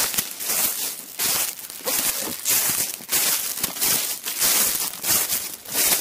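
Footsteps crunching through dry grass and fallen leaves at a steady walking pace, a little under two steps a second.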